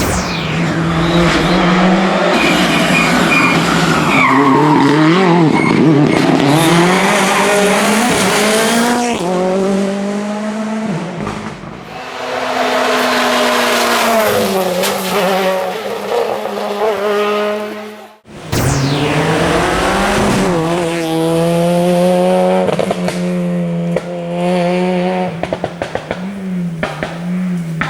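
Rally cars driven hard past the listener, their engines revving up and falling back through gear changes. The sound breaks off sharply about two-thirds of the way through, and another car follows.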